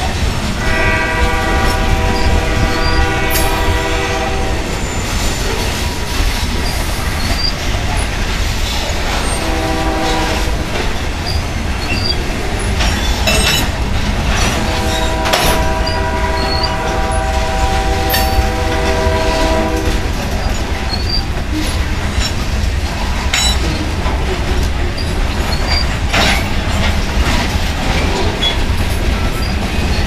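Covered hopper cars of a freight grain train rolling past close by: a steady low rumble of wheels on rail with scattered clicks and clanks. A diesel locomotive horn sounds three times, near the start, briefly about ten seconds in, and for about five seconds around the middle.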